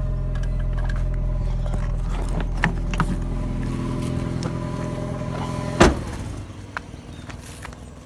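Car engine running, heard from inside the cabin as a steady low hum. Just before six seconds there is one loud thump, and after it the hum drops away and the sound goes much quieter.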